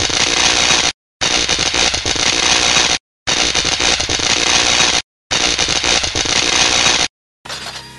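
Loud crackling static noise in blocks about two seconds long, each cut off sharply by a brief silence, ending about seven seconds in.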